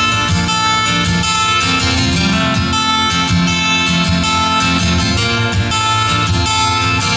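Acoustic guitar strummed steadily, playing the instrumental intro of a country song.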